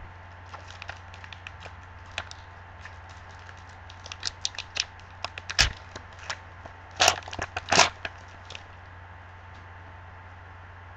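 A foil trading card pack wrapper crinkling and tearing open in gloved hands: a run of crackles, the loudest bunched a little past the middle, stopping about eight and a half seconds in.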